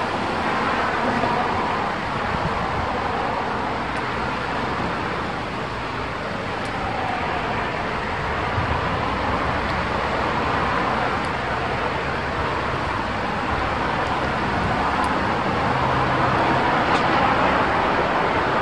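Strong wind blowing, a steady rushing roar that swells and eases a little and grows slightly louder near the end.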